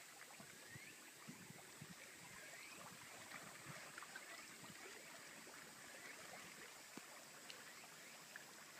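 Faint lapping of small lake waves against the shore and pier pilings, with light irregular splashes.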